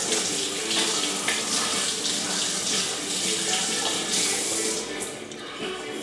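Kitchen tap running into a sink as chocolate frosting is rinsed off hands; the water is shut off a little before the end.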